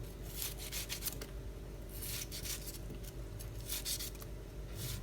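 A kitchen knife cutting up a small fruit for papaya salad: irregular scratchy, rasping strokes every half second or so. A steady low hum runs underneath.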